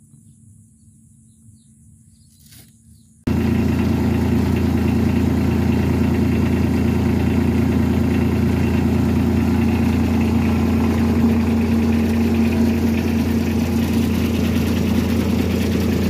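Rice combine harvester's engine running steadily at a constant speed. After a quiet start it comes in abruptly about three seconds in, loud and even, and stays so.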